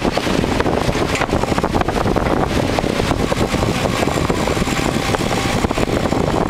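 Bobcat 341 compact excavator's diesel engine running under load while its hydraulic breaker hammers the concrete roof slab in rapid repeated blows.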